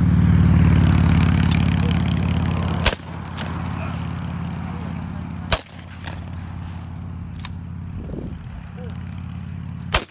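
Shotguns firing in turn on a trap range: five sharp reports about two to three seconds apart, one of them fainter. A steady low hum runs underneath, loudest in the first few seconds.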